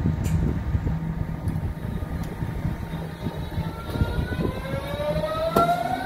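Berlin S-Bahn class 481 electric train pulling away from a station: a steady low hum, then about three and a half seconds in a whine from the traction drive that rises in pitch as the train gathers speed. A single sharp click comes near the end.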